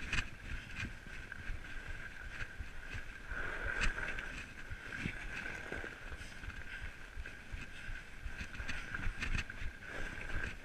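Fat bike rolling along a packed-snow trail: a steady high hum of riding noise with frequent knocks and rattles as the bike goes over bumps, and wind rumbling on the microphone.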